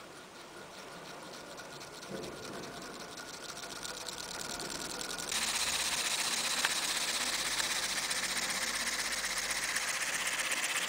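Clear plastic two-cylinder model air engine running on compressed air, a rapid, even mechanical chatter of its cylinders and exhaust puffs. It grows gradually louder, then jumps to a louder, brighter level about five seconds in.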